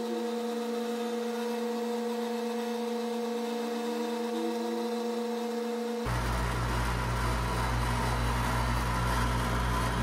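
Outdoor central air-conditioning condenser unit running while being charged with R22 refrigerant: a steady hum from the compressor and condenser fan. The deep low part of the hum is missing for the first several seconds and comes back about six seconds in.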